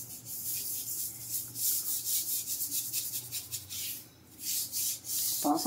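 Rapid rasping scrubbing strokes on a stained kitchen surface, many strokes a second, pausing briefly about four seconds in.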